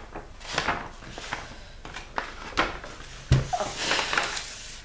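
Protective paper sheet over an adhesive diamond painting canvas being lifted and folded back: a run of paper rustling and crinkling, with a sharp knock a little past three seconds in.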